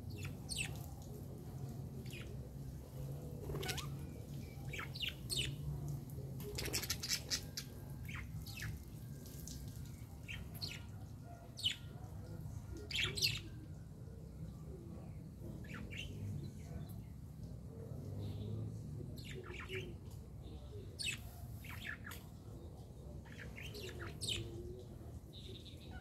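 Budgerigars chirping: short, sharp calls scattered irregularly, the loudest pair about halfway through, over a steady low rumble.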